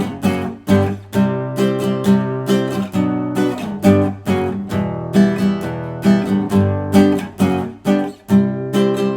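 Acoustic guitar strumming chords in a steady rhythm, a sharp stroke about twice a second, as an instrumental break between sung verses.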